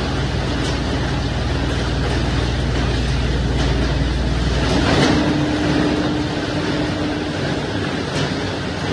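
A belt-driven branch shredder running steadily and grinding leafy branches pitchforked into its hopper, with a few sharp cracks. About five seconds in the low drone gives way to a steady hum that lasts a couple of seconds.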